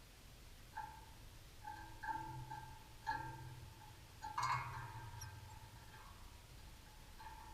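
A bird calling: a series of short notes on one steady pitch, about half a dozen, the loudest and harshest about four and a half seconds in.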